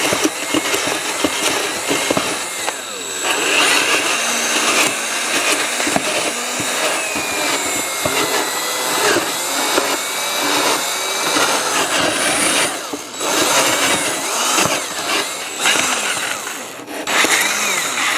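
Power drill with its bit grinding sideways into the foam form of a deer mount, roughing out a cavity. The motor whine wavers in pitch as the load changes, and the drilling stops briefly a few times.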